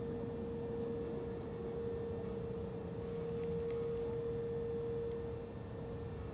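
Outdoor warning siren holding one steady, unwavering tone, the steady Alert signal, easing a little in level about five seconds in.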